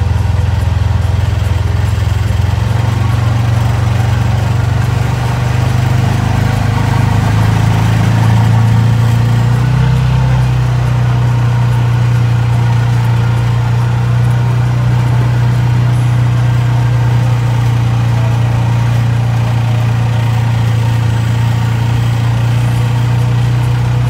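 Engine of an Arctic Cat utility vehicle running steadily as it drives and plows snow, its pitch rising slightly about eight to ten seconds in.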